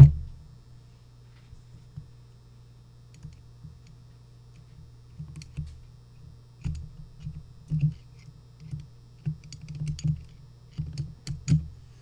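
A thump at the start, then irregular small clicks and knocks of a Phillips screwdriver working the cylinder-retaining screw in a brass padlock body.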